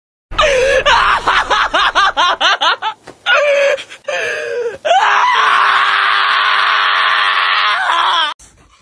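Shiba Inu screaming in protest at being restrained and handled for a vet exam: a fast run of wavering yelps, two shorter cries, then one long high scream of about three seconds that cuts off abruptly.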